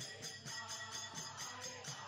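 Devotional kirtan music with a quick, steady jingling percussion beat over low drum strokes and a held, gliding melody line.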